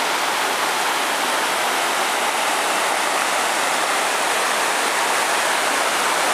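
Shallow mountain river rushing steadily over boulders and gravel.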